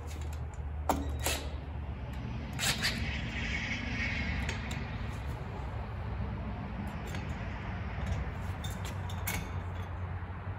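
Hand work on a steel U-bolt bracket: a few sharp metallic clicks and clinks as nuts are tightened and the bracket is slid into place, over a steady low rumble.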